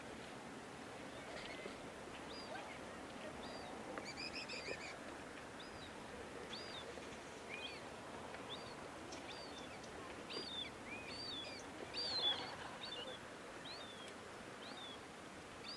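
Faint birdsong: many short, high chirps scattered throughout, with a longer warbling call about four seconds in and a louder flurry of calls about twelve seconds in.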